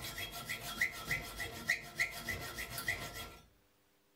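Small hacksaw cutting through a square steel tube, with steady back-and-forth rasping strokes about three a second. The sawing stops abruptly near the end.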